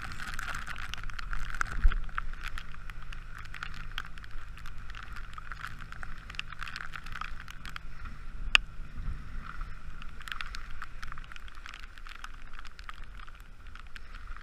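A Zodiac inflatable boat's outboard motor running steadily under way, with the hiss of water and wind and small ticks of rain and spray on the camera housing. The engine drops away about eleven seconds in; there is a low knock about two seconds in and a sharp tap about eight and a half seconds in.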